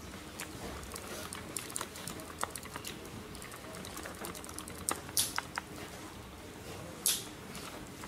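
Pencils scratching and tapping on paper as two people write on worksheets on a tabletop: a steady scatter of small clicks and scrapes. Two brief, louder swishes come about five and seven seconds in.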